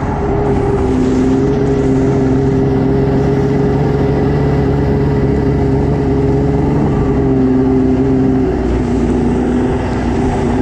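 Stand-up jet ski engine running at a steady high pitch while the craft skims at speed, over a rush of wind and water spray heard from a camera mounted on the hull. The engine note shifts slightly near the end.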